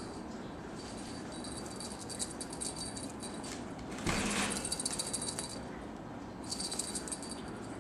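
A small bell jingling in shaken bursts, pausing for about a second past the five-second mark. A brief, louder rustle comes about four seconds in.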